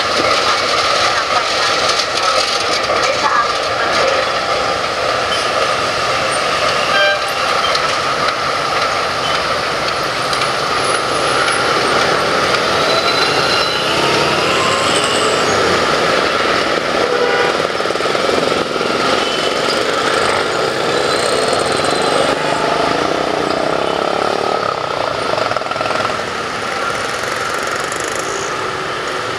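A CC 201 diesel-electric locomotive running steadily as it shunts past with a rake of passenger coaches, a loud, continuous engine and rail noise.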